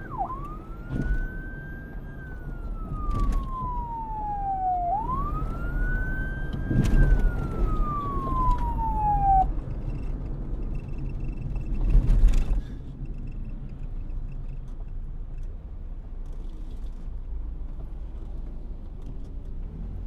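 Police siren wailing: two slow rises and falls in pitch, then it stops about nine and a half seconds in. A low rumble runs underneath throughout, with a brief loud noise about twelve seconds in.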